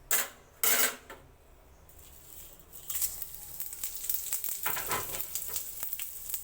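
Whole cumin seeds, a dried red chilli and a bay leaf frying in hot mustard oil in a kadai as a tempering (phoron). Two short loud sizzles near the start, then a steady crackling sizzle that builds from about two seconds in.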